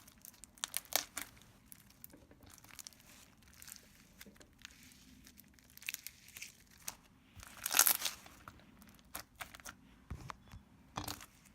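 Plastic packaging being handled and crinkled, with scattered crackles and clicks and a louder rustle about eight seconds in.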